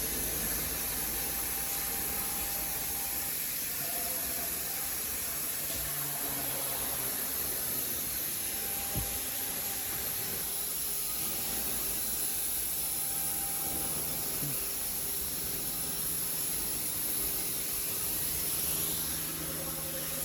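5-axis CNC router running steadily, a continuous high hiss with a faint click about nine seconds in.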